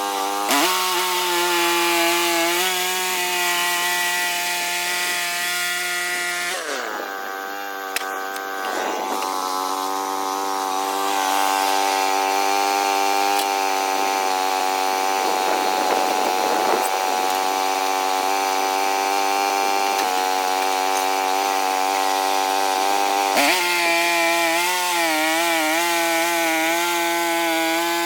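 Small sawmill's engine running steadily while sawing wood, its note shifting as the load changes a few seconds in and again near the end, where the pitch wavers.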